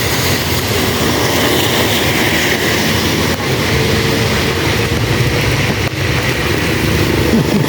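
Heavy rain falling steadily: a loud, dense hiss with a low rumble underneath.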